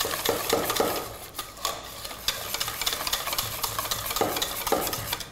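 Butter being beaten with a utensil in a stainless steel mixing bowl: a steady run of quick scraping clicks against the metal.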